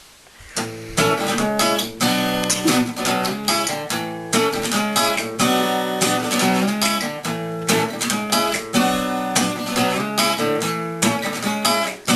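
Acoustic guitar strumming chords in a steady rhythm, an instrumental break in a song, coming in about half a second in.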